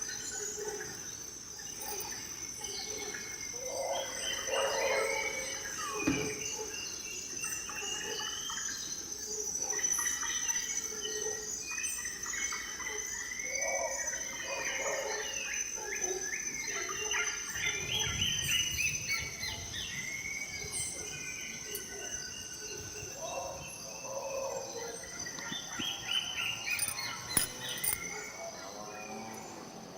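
Rainforest soundscape: many birds calling in short whistled and chirped phrases, some repeated in quick runs, over a steady high-pitched insect drone.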